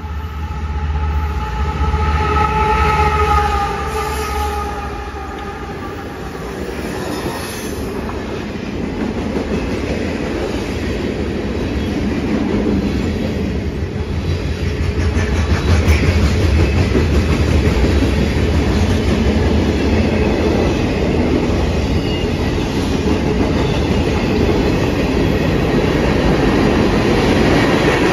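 Diesel-hauled freight train passing close by. The locomotive's air horn chord sounds for the first several seconds, dropping slightly in pitch as it goes by, over the deep rumble of the engine. Then comes the steady rumble and clatter of freight cars rolling past on the rails.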